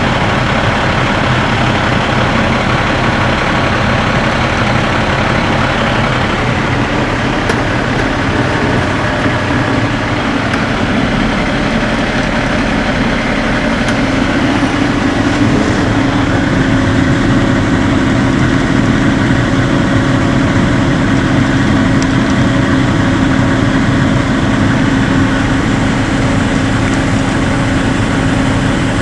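Cat C13 diesel engine of a Freightliner M2 truck idling steadily, heard from inside the cab. A steady hum joins about halfway through.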